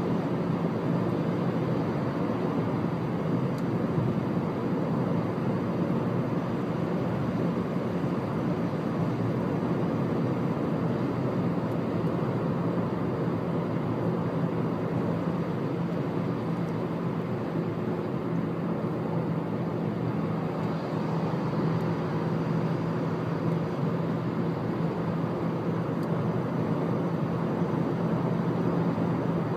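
A car driving at expressway speed: steady road and tyre noise with a constant low engine drone, unchanging throughout.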